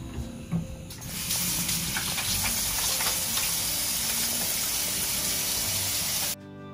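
Kitchen faucet running into a stainless steel sink while hands are washed under the stream, starting about a second in and cutting off abruptly near the end. A sharp click comes about half a second in, before the water starts.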